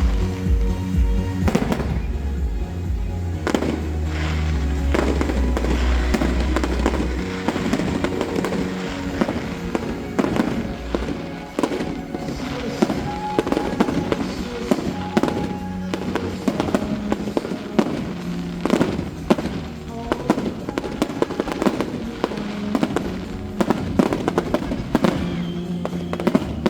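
Fireworks display: rapid bangs and bursts, some in quick clusters, over music with a deep bass for the first several seconds.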